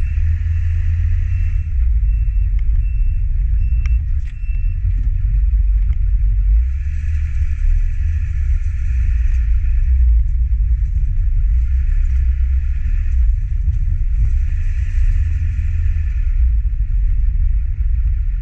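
Dump-bed pickup truck driving slowly, heard from a camera mounted on its side: a steady low rumble of engine, tyres and wind on the microphone, with a higher hiss that swells and fades a few times.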